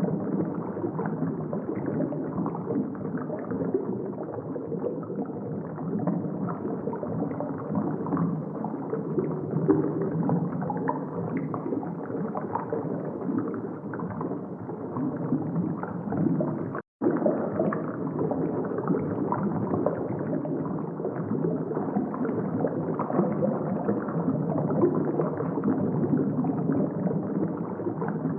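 Steady gurgling water noise, with a brief total dropout about 17 seconds in.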